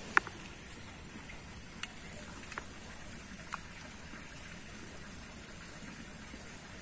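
Faint steady outdoor background with four short sharp clicks. The first, just after the start, is much the loudest, and three fainter ones follow over the next few seconds.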